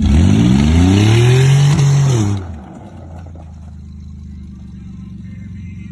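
Car engine revved hard from idle, its pitch climbing for about two seconds under a loud rushing noise, then falling and dropping suddenly back to a steady idle.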